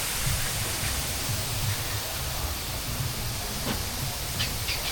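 Steady hiss of rushing, spraying water at a water park, with a low rumble underneath and a few faint high squeals near the end.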